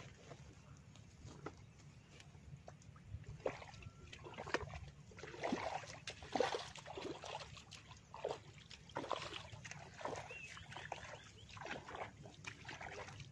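Bare feet stepping through wet paddy mud, giving faint irregular squelches and sloshes that begin about three and a half seconds in, over a steady low hum.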